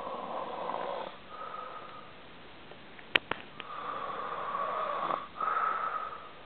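A person snoring heavily in sleep: four rasping snore breaths, two in the first two seconds and two more in the second half, with two sharp clicks a little after three seconds in.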